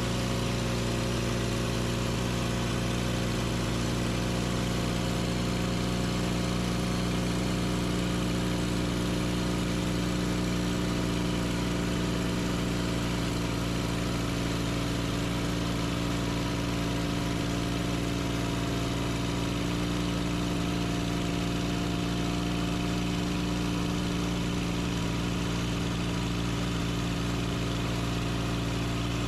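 Sawmill engine running steadily at an even speed while sawing a hemlock log into lumber.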